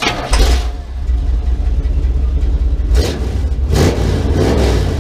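Car engine running with a deep, loud rumble and swells of revving.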